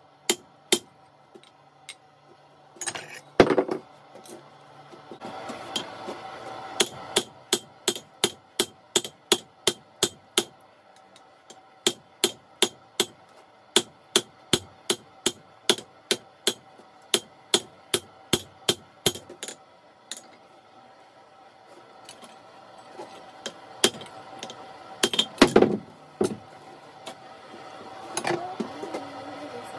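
Hand hammer striking glowing hot steel held in tongs on an anvil, forging a hammer head: scattered blows at first, then a steady run of about two ringing strikes a second that stops around two-thirds of the way through. A louder clatter of metal comes near the end.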